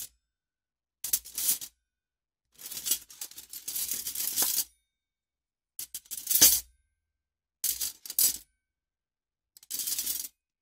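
Metal cutlery clattering and rattling in a cutlery case, in five separate bursts with silence between them. The longest burst runs about two seconds near the start, and the loudest jangle comes a little past halfway.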